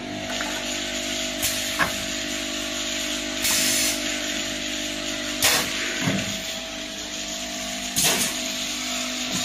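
Automatic bottle filling and capping machinery running: a steady motor hum, with a short hiss of air about every two seconds and a few sharp clicks.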